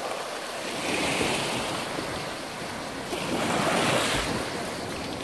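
Small sea waves washing onto a pebbly beach, the wash swelling about a second in and again between three and four seconds in, with some wind on the microphone.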